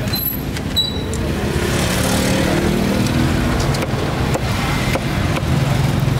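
Steady road traffic noise of vehicles passing, with one engine standing out for a second or so about two seconds in.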